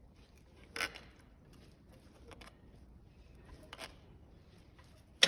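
Quiet room with a few brief handling noises, short scrapes or rustles, as a piece of 1.2 mm steel sheet is picked up and looked over. A sharp click or tap comes just at the end.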